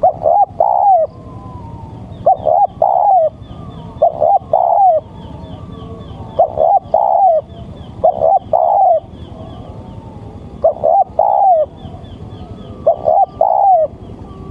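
Male spotted dove (tekukur) cooing: a phrase of a short coo followed by a longer arched coo, given seven times at roughly two-second intervals. Faint high chirping of smaller birds runs underneath.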